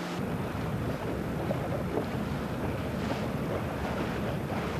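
Wind buffeting the microphone over the rush and slap of choppy sea water around racing sailing dinghies, with a heavy low rumble.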